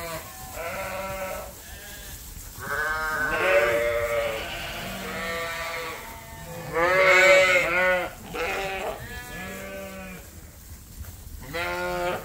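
A flock of ewes bleating over and over as a herding dog moves them, the wavering calls often overlapping; the loudest burst of bleats comes about seven seconds in.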